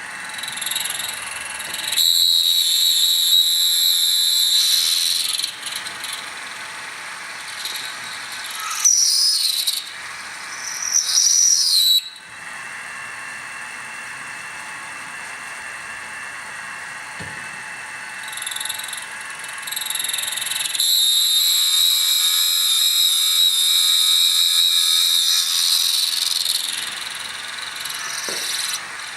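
A drill bit cutting into an aluminum AR-15 lower receiver forging, the machine running steadily with a high squealing whine from the cut in three stretches. The first stretch starts about two seconds in, the second comes about nine seconds in with its pitch gliding up and down, and the third comes about two-thirds of the way through.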